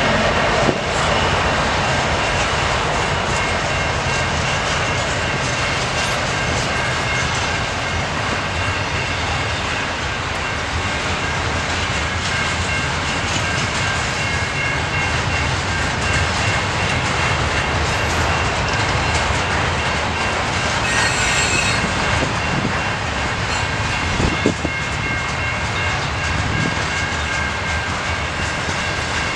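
A CN intermodal freight train's double-stack container cars rolling past, a steady noise of steel wheels on rail with a couple of sharp clunks, one near the start and one about 24 seconds in.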